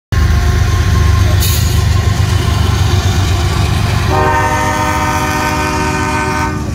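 Union Pacific diesel locomotives passing close with a heavy, steady engine rumble. About four seconds in, the locomotive's horn sounds one long chord of several notes at once, cutting off near the end.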